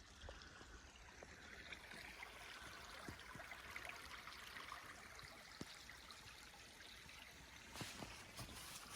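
Near silence: a faint steady hiss with a few light ticks.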